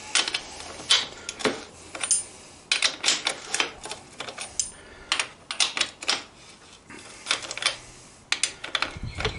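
Irregular sharp metallic clicks and clinks from a 24 mm socket and wrench working on the motorcycle's rear axle nut to undo it. The clicks come in short runs of a few each.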